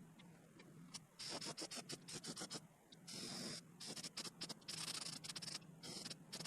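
Airbrush spraying paint in many short bursts of hiss, with one longer burst about three seconds in.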